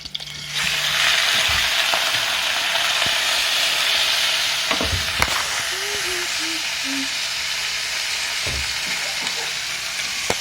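Boneless chicken pieces sizzling loudly in hot oil in a pan with fried onions, the sizzle starting about half a second in as the meat goes in. A few knocks of a utensil against the pan sound partway through.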